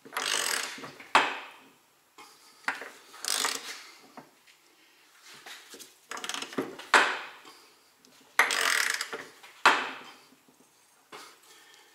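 A hand wrench turns the forcing screw of a bearing press tool in four strokes, each about a second of grinding, creaking metal. Several strokes end in a sharp click. A new front wheel bearing is being pressed into the hub little by little.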